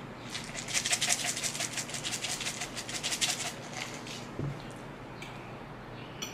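Canister of grated cheese shaken rapidly over a plate of pasta, a quick rattling run of about eight shakes a second lasting about three seconds, followed by a soft knock.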